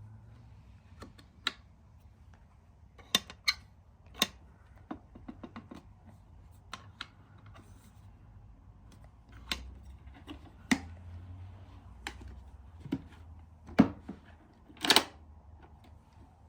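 Scattered clicks, taps and light knocks from hands handling a capsule coffee machine and its parts or packaging, irregular and close up. The loudest are a sharp tap and a short scraping handling noise near the end.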